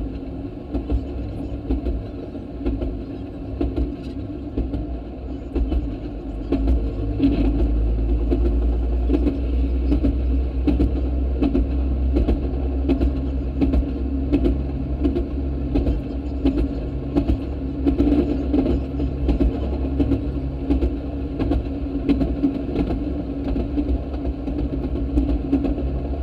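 Railroad speeder (track motorcar) running down the rails: a steady engine drone with frequent sharp clicks from the wheels on the track. It gets louder about seven seconds in.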